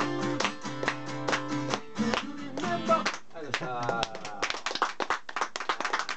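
Acoustic guitar strumming a steady rhythm that stops about two seconds in, followed by a brief gliding voice and then audience handclaps starting about four and a half seconds in.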